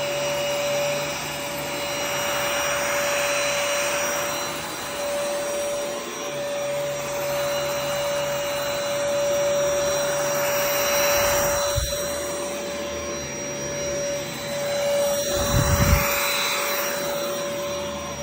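HOMPANY cordless stick vacuum running on its max setting over carpet: a steady high motor whine over a suction hiss that swells and fades. Two low thuds break in, about twelve seconds in and again near the end.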